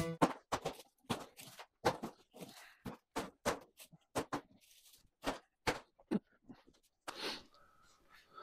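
Quiet, irregular light knocks and clicks, about two or three a second, with a short hiss about seven seconds in.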